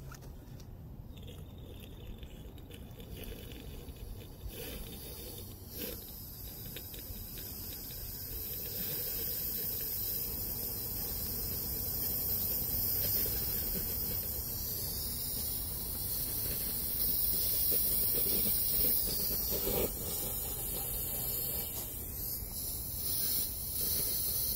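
Low-pressure compressed air (about 20 PSI) hissing through a blower nozzle into a car's fuel filter, blowing old gasoline out of the outlet in a fine spray. The hiss carries a thin high whistle and grows louder over the first several seconds.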